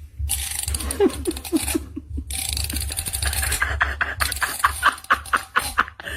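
A person laughing in short repeated bursts.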